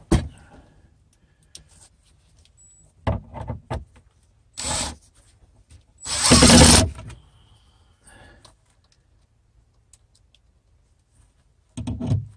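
Cordless drill running in several short bursts, the longest about a second near the middle, as screws are driven into the post and beam leveler.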